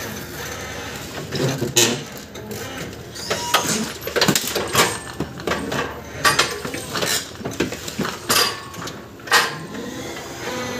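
Irregular knocks, clatter and rustling over a steady background hum.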